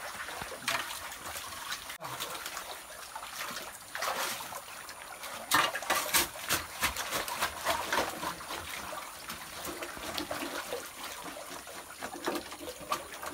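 Muddy water splashing and sloshing as hands and a digging tool work gravel in a shallow pool, with irregular knocks and scrapes of the tool against stones.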